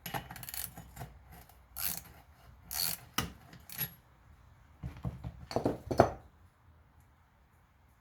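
Metal tools being handled: a wrench and parts clinking, rubbing and scraping in a string of short bursts, falling quiet about six seconds in.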